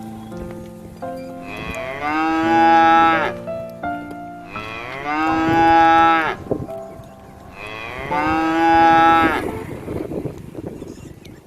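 Cow mooing: three long moos, each about two seconds, rising in pitch, holding, then dropping off at the end, with a short pause between them.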